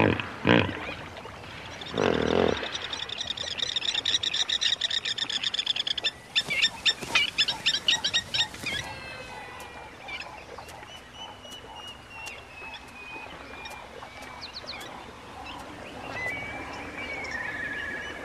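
Two deep hippo grunts in the first few seconds, then plovers calling in fast, shrill, rapidly repeated piping series, loudest in the middle, giving way to fainter thin bird calls near the end.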